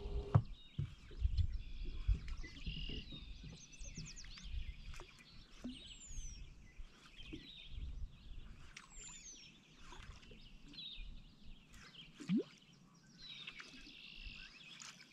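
Birds chirping and calling over open water, with a few short falling whistles now and then. Low knocks and bumps in the first two seconds, and a short rising note about twelve seconds in that is the loudest sound.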